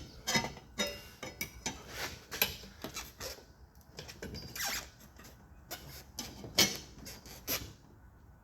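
Tyre levers clinking and scraping against a dirt bike wheel rim as the tyre bead is levered off, in irregular short knocks and scrapes, the loudest about two-thirds of the way through.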